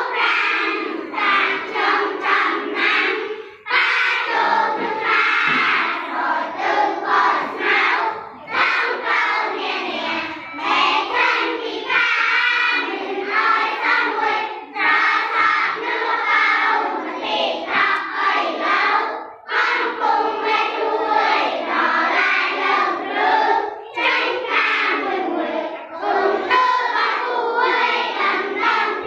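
A group of children singing together in unison, in phrases separated by brief pauses.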